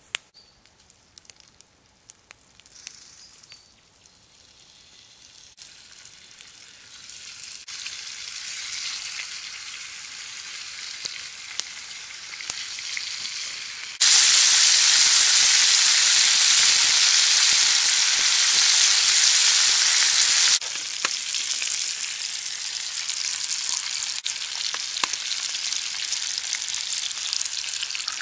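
Bacon sizzling in a steel frying pan over a small wood-burning twig stove. After a few light clicks the sizzle starts faint and builds over several seconds. It is loudest for about six seconds in the middle, drops abruptly, then carries on at a moderate level.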